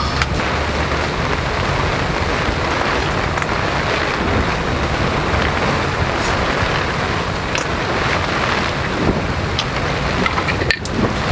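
Sleet mixed with snow pattering on the tent fabric: a steady, dense hiss of impacts on the canvas, with a few sharp ticks scattered through it.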